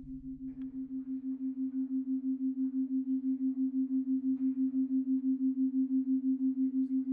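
A single sustained tone that pulses about seven times a second and slowly grows louder.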